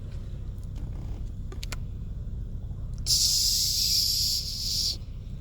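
A few faint clicks, then a sharp steady hiss lasting about two seconds that starts about three seconds in and cuts off suddenly, over a steady low rumble.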